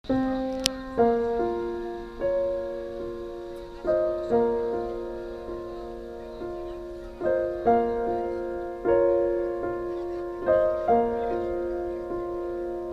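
Slow solo piano music: notes and chords struck about every second or so and left to ring and fade.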